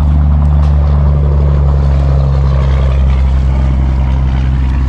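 A boat motor running with a steady low hum, over wind and water noise.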